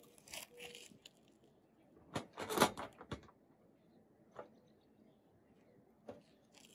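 A few short knocks and scrapes from an IronRidge XR100 aluminium solar mounting rail being shifted on its footing bolts during fine alignment. The loudest cluster comes about two to three seconds in, and single clicks follow later.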